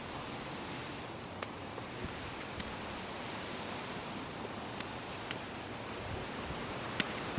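Steady outdoor background noise with a faint, thin, high steady tone, broken by a few light clicks and taps.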